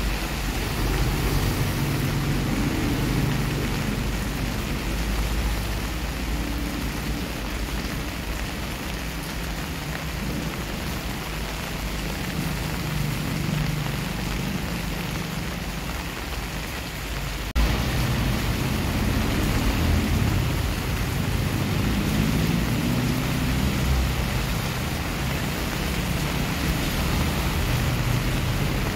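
Steady rain falling on a wet paved driveway and garden plants, with a low rumble underneath that comes and goes.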